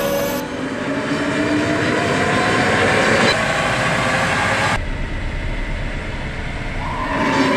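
Car wheels spinning on the steel rollers of a roll-and-brake test rig, with a whine that rises slowly in pitch as the rollers speed up. About five seconds in, the sound changes abruptly to a lower, steady hum and rumble.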